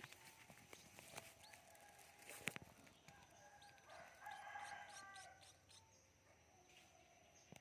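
A faint bird call with a stack of several tones, held for about two seconds around the middle. A sharp knock comes shortly before it.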